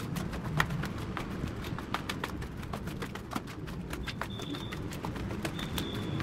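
Footsteps on gritty concrete and construction debris, quick irregular scuffs and crunches several times a second, over a low rumble. A short high-pitched tone sounds twice in the second half.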